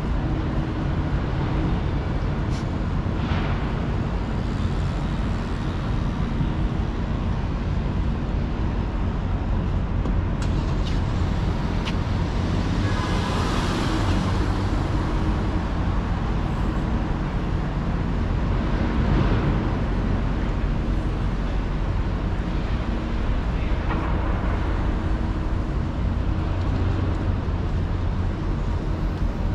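City street traffic: a steady low engine hum underneath, with vehicles passing now and then, the loudest pass about halfway through.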